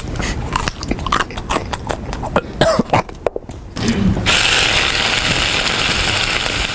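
Snack being eaten noisily: a fast run of sharp crackling clicks for about three seconds that then stops. After a short pause a steady hiss begins and carries on.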